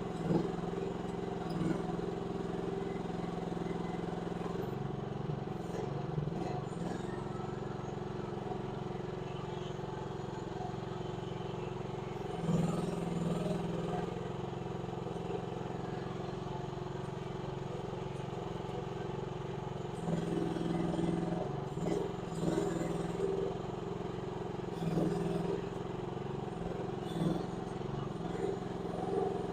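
Mini excavator engine running under changing load while it pushes snow with its blade. The engine note strengthens and shifts several times, about twelve seconds in and again in the last third, with a few clunks.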